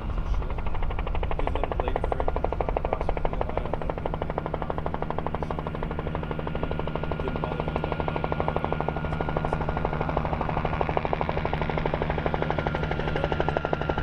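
Bell 47 helicopter flying in, its two-blade main rotor chopping in a rapid, even beat over a steady engine hum.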